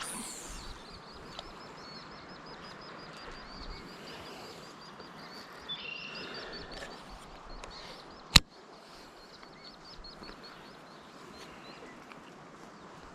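Outdoor ambience with a high chirping call repeated about four times a second over faint background noise. A short falling swish at the start fits a fishing rod being cast, and a single sharp click comes a little past eight seconds in.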